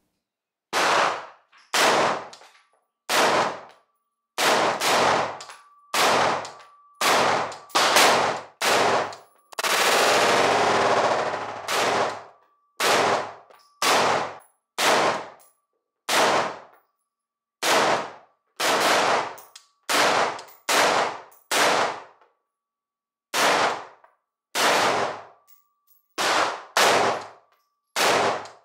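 Schmeisser AR-15 Dynamic semi-automatic rifle in .223 Rem (5.56×45 mm) firing a long string of single shots, roughly one a second with some quicker doubles, each report echoing briefly. About ten seconds in, a continuous noise lasts about two seconds, and a faint thin ring hangs between the shots.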